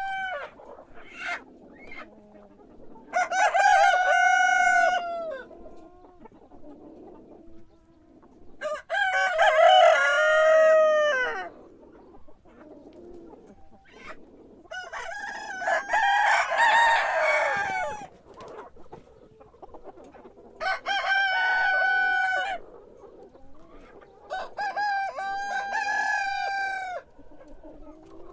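Rooster crowing again and again: five long crows about every five to six seconds, with short clucks in between.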